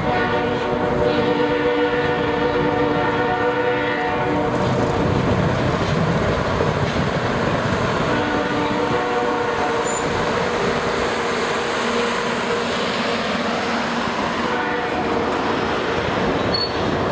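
CP Holiday Train's boxcars rolling past with steady wheel-on-rail noise, while the locomotive horn sounds ahead: one long chord for about the first four seconds, then shorter, fainter blasts around eight and fifteen seconds in.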